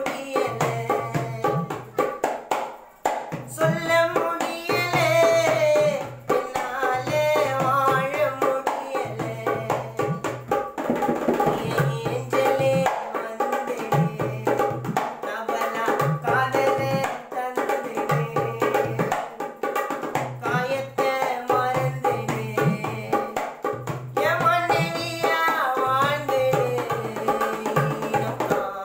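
Dholak played in a steady rhythm, deep bass strokes under sharper slaps, with a voice singing a melody over it.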